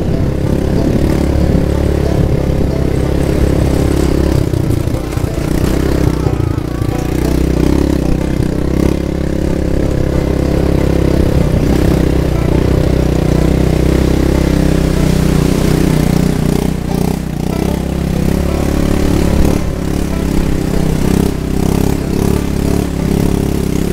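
ATV (quad bike) engine running steadily while the machine is ridden along a trail.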